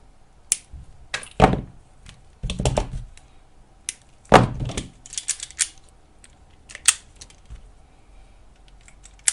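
Irregular clicks, clacks and knocks of hand tools and small parts being handled and set down on a workbench during battery wiring work. There is a quick run of light clicks about five seconds in.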